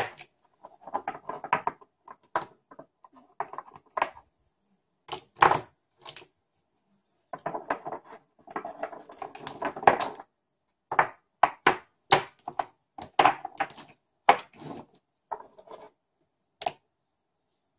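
Salvaged 18650 lithium-ion cells clicking and clattering against one another as they are picked from a heap and set down in rows on a cutting mat. The knocks come in quick, irregular clusters.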